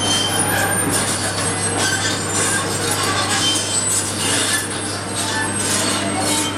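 Heavy construction machinery running with a steady low hum, and short high metallic squeals and scraping throughout.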